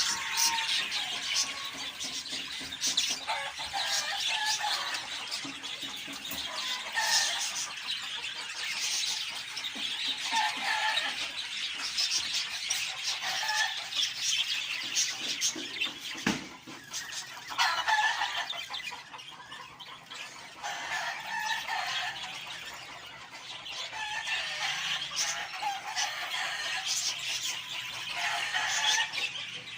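Many budgerigars chattering and chirping continuously, with louder squeaky calls breaking in every second or two.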